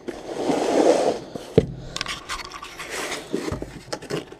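Scraping and rustling of packaging as a new transmission yoke is handled and taken out of its box. A sharp knock comes about a second and a half in, followed by smaller clicks and rustles.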